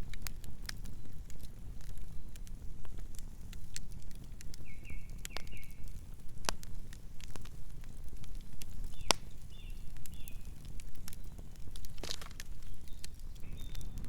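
Wood campfire crackling: irregular sharp pops and snaps over a low steady rumble of the burning fire.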